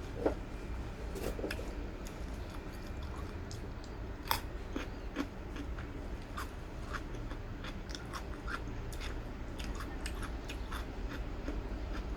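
A person chewing and biting food close to the microphone, with scattered crisp crunches, the sharpest about four seconds in.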